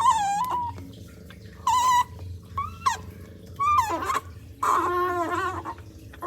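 Baby otter giving loud, high-pitched squealing calls: about five separate calls that rise and fall in pitch, the last a longer wavering one lasting about a second.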